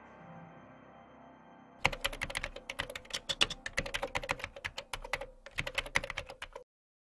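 Rapid computer-keyboard typing: a fast run of keystrokes lasting about three seconds, a short pause, then about another second of typing that stops abruptly. Before the typing starts, a faint musical tone dies away.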